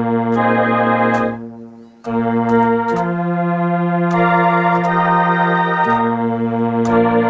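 ARP Solina String Ensemble string synthesizer playing held chords that change every second or two, one chord fading away about one and a half seconds in before the next starts. It sounds right after the repair: 'seems to play okay'.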